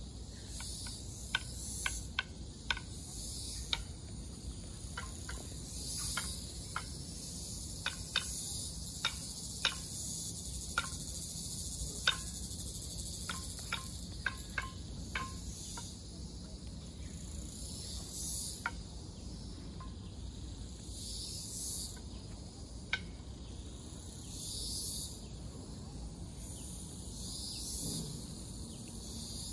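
Insect chorus in the forest: a steady high-pitched buzzing that swells and fades every few seconds. Scattered sharp clicks come through it, many in the first half and one more later.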